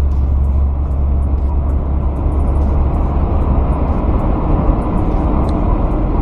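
Semi-truck's diesel engine and tyre noise heard inside the cab while driving: a steady low drone.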